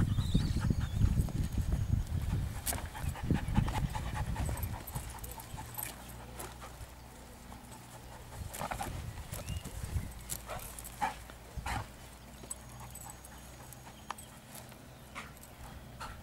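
A young dog panting, loudest during the first few seconds, with a few scattered clicks.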